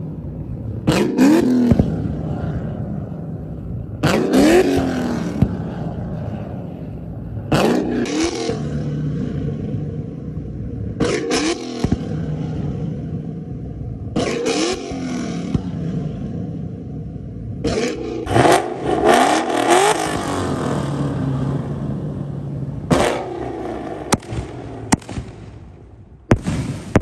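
Ford Mustang engine revved again and again, about every three seconds, each rev rising and falling in pitch. Sharp exhaust pops and bangs come as flames shoot from the exhaust tips, and a few more sharp bangs come near the end.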